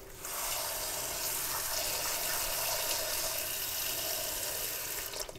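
Water running from a kitchen tap into a ceramic pot of meat and vegetables, filling it. A steady rush that starts just after the beginning and stops shortly before the end.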